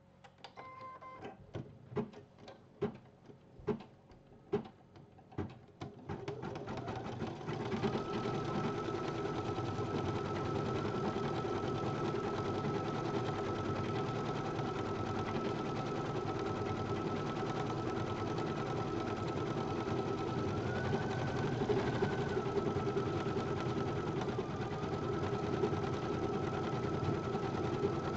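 Brother BP1530L computerized embroidery machine starting a design. A short beep comes about a second in, then a run of single separate knocks. About six seconds in it speeds up into steady fast stitching with a held whine.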